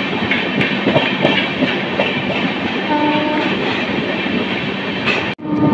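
Passenger train running, heard from an open coach doorway: a steady rumble of wheels on rail with scattered clicks over the rail joints. A short horn note sounds about three seconds in.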